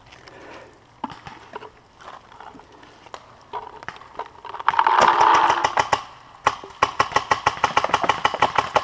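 Paintball marker firing rapid strings of shots at about ten a second: a loud burst a little past halfway, then a longer string toward the end.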